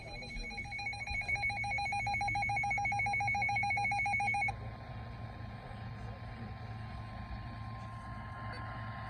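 Emergency alert tone for a marine warning: a rapidly pulsing, trilling electronic tone for about four and a half seconds that cuts off suddenly, leaving a faint steady tone over radio hiss.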